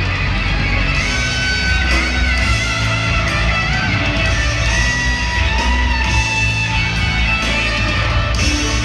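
Live rock band playing: electric guitar lines over bass and drums, with the guitar played on a double-neck electric guitar. Steady and loud, heard from the audience.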